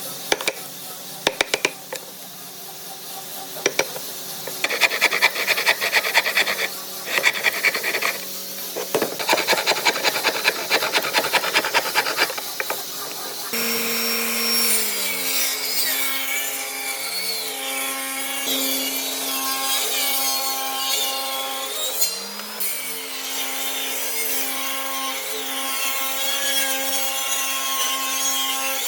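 Tools working solid wood. The first half is clusters of rapid rasping or sawing strokes. From about halfway a power tool's motor runs steadily, its pitch dipping and recovering several times as it takes the load.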